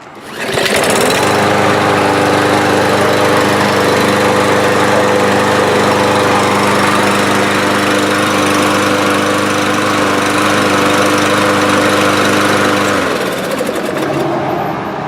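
Yard Machines lawn mower engine starting on the pull, catching at once and running steadily for about twelve seconds, then winding down and stopping near the end.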